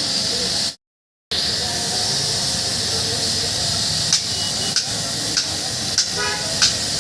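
Steady hiss with a brief dropout to silence about a second in, then a handful of sharp clicks or knocks spaced roughly half a second apart in the last three seconds, with a short pitched squeak among them.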